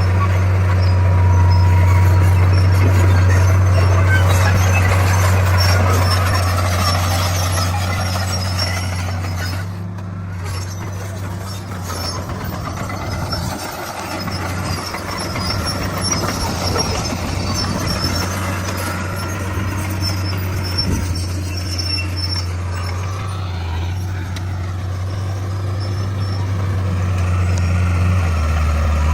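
D41 bulldozer's diesel engine running steadily under load, with squeaks and rattles from the machine over it. The engine note eases around the middle and drops lower near the end.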